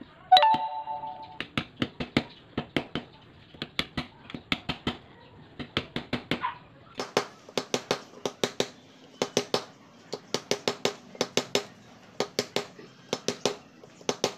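Hammer tapping a screwdriver held as a drift against a motorcycle steering stem, working the knuckle (steering-head) bearing. The first blow is the loudest, a metallic clang that rings for about a second, followed by a steady run of quick sharp taps in clusters of two to four.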